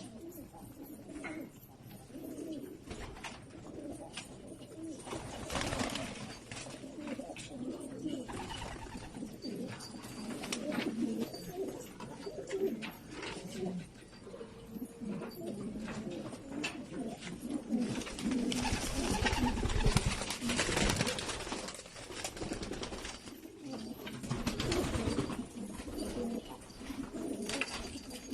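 Domestic pigeons cooing, a low continuous run of coos with louder noisy surges now and then, the loudest about two-thirds of the way in.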